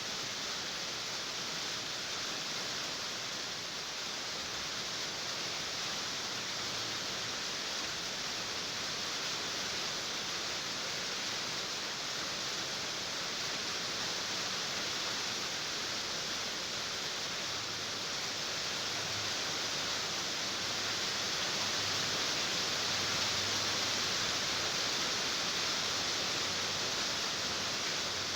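Steady rain on a tin roof: a dense, even hiss with no single drops standing out, growing a little louder about two-thirds of the way through.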